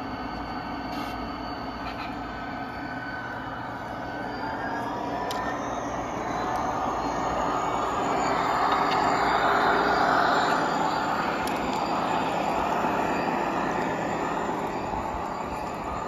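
Two G-scale model diesel locomotives running along the track: a steady whine of electric motors and gears with wheel and rail noise, a few clicks, and a slowly rising whine. It grows louder to a peak about ten seconds in as the locomotives pass close.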